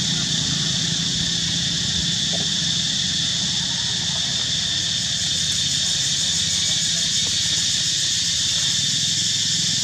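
Steady background ambience: an even, high-pitched buzz over a low steady hum, with nothing sudden.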